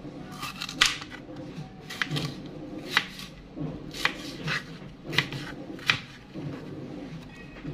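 Kitchen knife slicing a vegetable on a plastic cutting board: about seven sharp knocks as the blade goes through and hits the board, roughly one a second.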